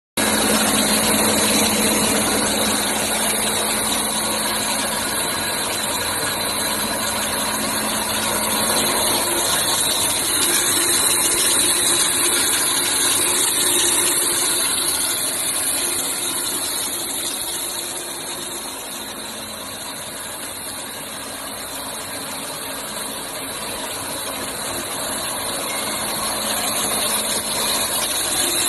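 Floating fish-feed pellet machine running with a steady mechanical noise and a low hum, easing a little past the middle before building back up.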